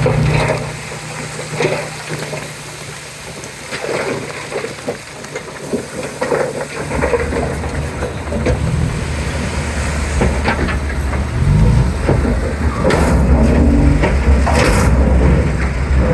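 Komatsu D31P bulldozer's diesel engine working, with knocks and clanks from the machine and its load. The engine eases off early, then comes back under load about seven seconds in, rises in pitch briefly, and runs loud to the end.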